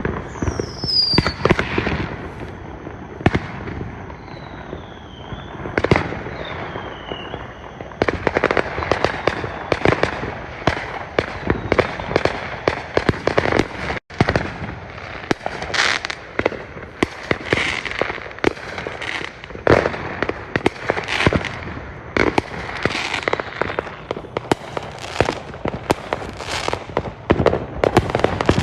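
Fireworks going off in quick succession: many sharp bangs and crackles, with a few whistles that fall in pitch in the first several seconds. From about eight seconds in, the bangs come thicker and louder.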